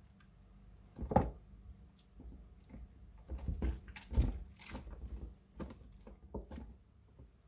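Soaked glycerin soap plates being handled and washed, giving soft wet squishes and crackles at an irregular pace. The loudest is a single sharp one about a second in, followed by a run of softer crackles and taps.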